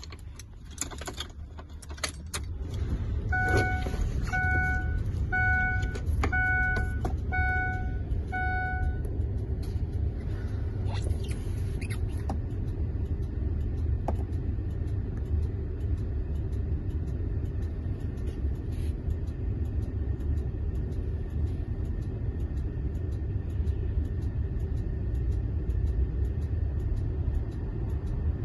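Clicks and knocks of a vehicle door and keys, then a vehicle's warning chime beeping six times about once a second. A steady low rumble starts about three seconds in and carries on throughout.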